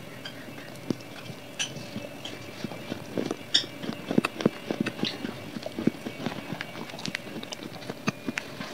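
Close-miked chewing of hard edible clay: irregular sharp crunches and clicks as the chunk breaks between the teeth, busiest around the middle.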